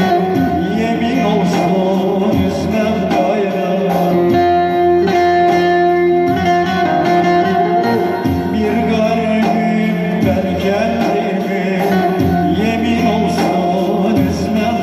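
Live Turkish folk music: a plucked saz-type lute played through an amplifier over a Korg keyboard accompaniment. The keyboard holds long steady notes for a few seconds near the middle.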